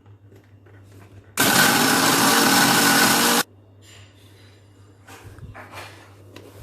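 Electric mixer grinder blending dry Oreo biscuits into powder. It runs loudly for about two seconds, starting and stopping abruptly, followed by faint handling sounds.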